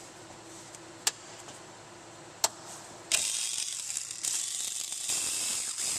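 Worn cordless impact gun, said to be on its last leg, running for about three seconds from about halfway through as it backs out a 10 mm timing-belt cover bolt, with two brief breaks. Two sharp clicks of the socket on the bolt come before it.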